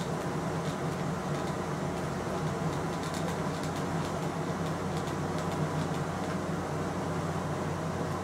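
Steady low mechanical hum, with a few faint light clicks between about three and five and a half seconds in.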